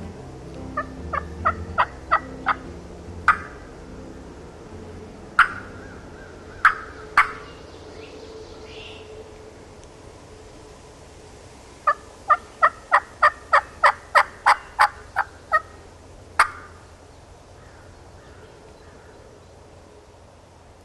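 Wild turkey yelping: a run of about six short, evenly spaced notes near the start, a few single sharp notes, then a longer run of about ten notes about 12 seconds in.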